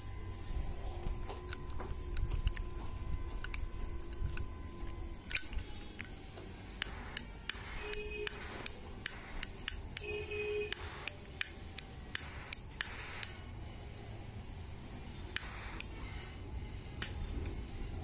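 Zippo butane lighter insert being clicked over and over as its ignition is worked to get it to light: a long series of sharp metallic clicks, about two a second, starting about five seconds in.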